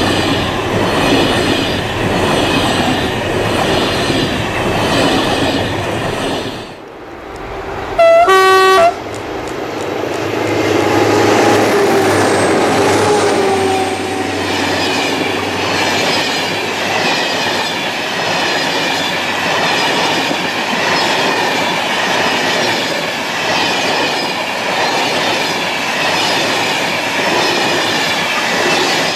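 Passenger coaches rolling past close by, the wheels clattering rhythmically over the rail joints. After a short dip about a quarter of the way in, a train horn sounds one loud blast of about a second, the loudest moment, and another train's coaches rush past.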